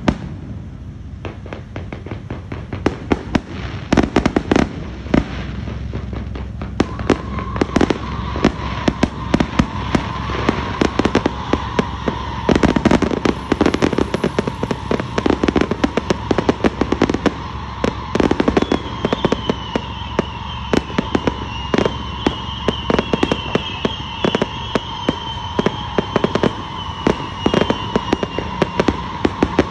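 Fireworks display: a rapid, continuous string of bangs and crackles as rockets and aerial shells launch and burst.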